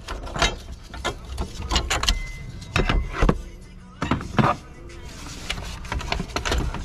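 Irregular metallic clinks and knocks of parts and hand tools being handled in a car's engine bay, with background music.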